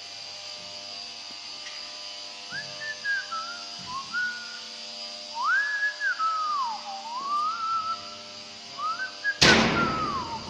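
Someone whistling a tune in short gliding phrases. Near the end comes a sudden loud thump.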